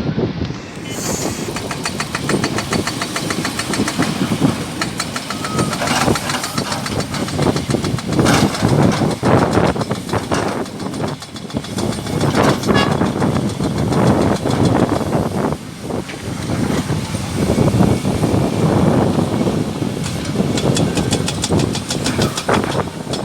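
Heavy diesel machinery of an excavator loading a dump truck: a steady engine rumble with many clanks and knocks all through.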